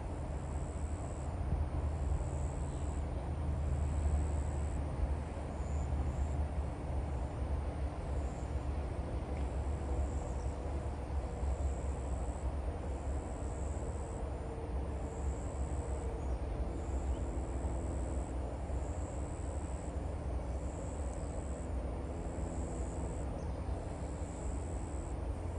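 Outdoor ambience: a steady low rumble underneath, with insects calling in regular high-pitched pulses about once a second.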